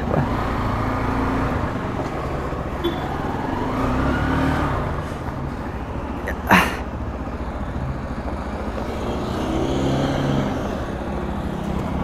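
Hero Xpulse 200's single-cylinder engine running as the motorcycle pulls away and rides off, its note rising and falling in the first few seconds. A single sharp knock sounds about halfway through.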